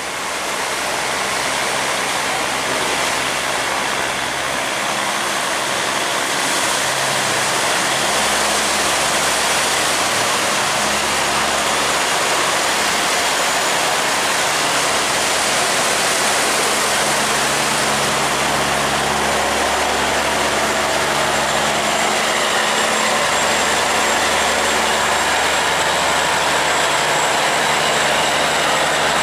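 Fast water rushing and churning along a loaded steel cargo barge's hull as it pushes through an open sluice gate against a strong current. The barge's engine hums steadily underneath.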